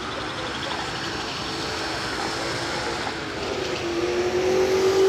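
A car running, with a steady hum that grows louder and rises slightly in pitch about four seconds in.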